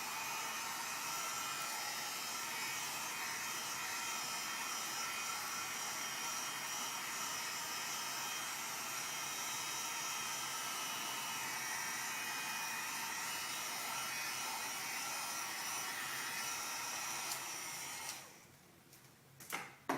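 Heat gun blowing steadily on a raised heat setting, shrinking shrink-wrap film tight around a bundle. It switches off about eighteen seconds in, followed by a couple of light knocks.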